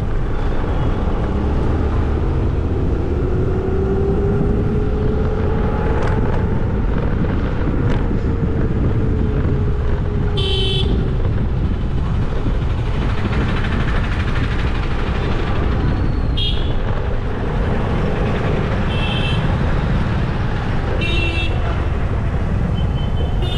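Steady wind and road noise from riding a scooter through traffic, with vehicle horns tooting briefly about five times in the second half.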